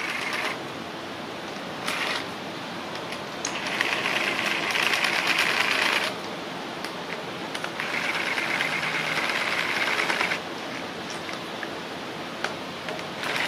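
Power driver with a socket extension running in short spurts as it unscrews the bolts holding the MultiAir hydraulic actuator unit to the cylinder head. There is a brief whir near the start, another about two seconds in, and two longer runs of about two seconds each in the middle.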